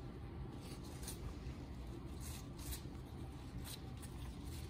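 Stiff, starched tarlatan (cheesecloth) crinkling and rustling faintly as gloved hands fold its edges in on themselves, with scattered short crackles.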